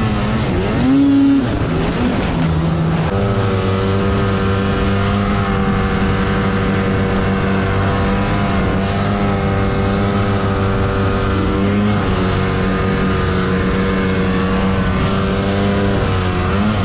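Arctic Cat Alpha One M8000 snowmobile's two-stroke twin engine running hard under load as the sled ploughs through deep powder. The revs rise and fall over the first few seconds, then hold steady at a high pitch, dipping briefly about twelve seconds in and shifting again near the end.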